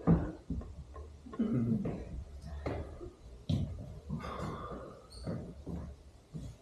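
Scattered knocks and thuds from a stage performance, the loudest right at the start, with a few brief voice sounds in between.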